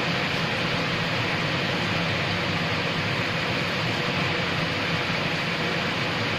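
Rain falling steadily: an even hiss that holds level, with nothing standing out.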